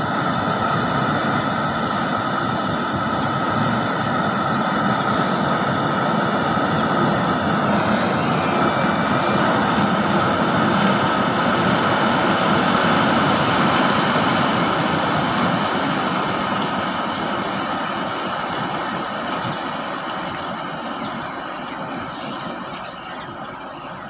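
Self-propelled corn harvester running as it cuts through standing maize: a steady engine and machinery drone with a steady high whine, growing louder to about halfway and then fading toward the end.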